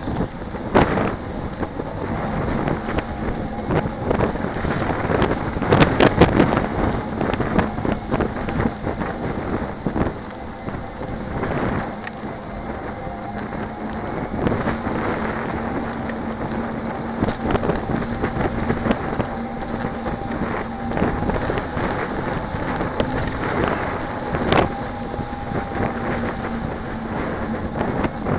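Wind buffeting the microphone and tyre noise of an electric unicycle rolling over pavement, with a faint steady whine underneath. A cluster of knocks comes about six seconds in.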